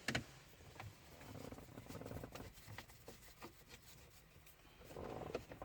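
Faint small clicks and scratching as a screw is turned by hand into the plastic dash console.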